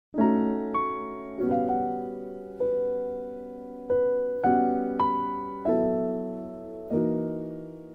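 Background music: slow, relaxed piano chords struck about once a second, each ringing out and fading. It begins from silence just after the start.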